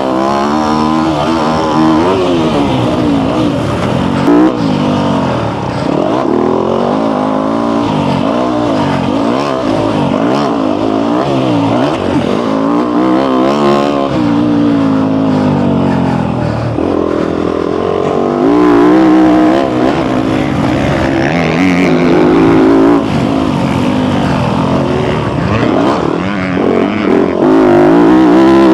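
Dirt bike engine under hard riding, revving up and dropping off again and again as the throttle is opened and closed around a motocross track, rising and falling in pitch many times. Heard up close from a camera on the rider.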